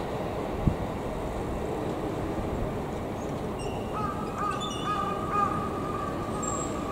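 Steady city background noise. About four seconds in, a steady high tone and a few short, broken higher calls join it.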